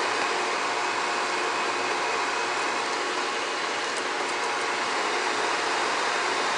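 Electric food dehydrator running, its fan giving a steady rush of air with a faint hum. A couple of light plastic clicks come about four seconds in as a tray is handled.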